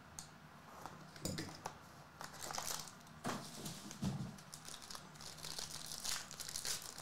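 Black Diamond hockey card box slit open with a box cutter, then the foil wrapper of its card pack crinkling and tearing as it is pulled open by hand, with irregular rustles and small clicks.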